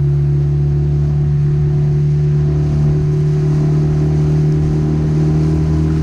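A motor running at a constant speed, giving a loud, steady low drone that holds one pitch throughout.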